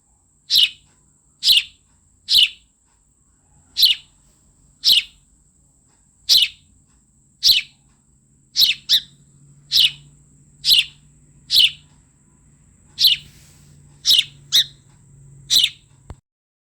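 Sparrow chirping: short, sharp single chirps about once a second, a few given as quick doubles, stopping shortly before the end. A faint steady high tone runs underneath.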